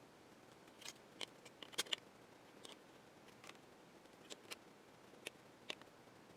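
Faint, irregular clicks and small metallic snaps as the metal retaining tabs on the Epson HX-20's LCD bezel are bent open to free the bezel.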